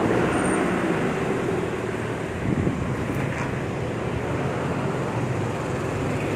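Steady low machine hum mixed with street traffic noise, with a brief swell about two and a half seconds in.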